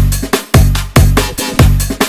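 Loud electronic dance music played through a large parade sound system, with deep booming bass beats about twice a second and bright hi-hat-like ticks between them.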